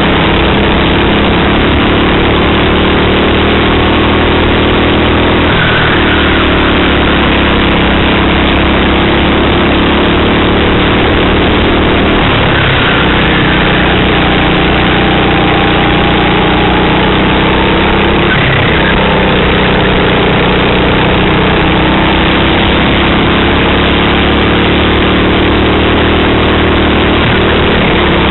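Racing kart engine heard from an onboard camera on the kart. Its revs climb slowly along each straight, then drop sharply about four times as the kart slows for corners, over a constant heavy rush of noise.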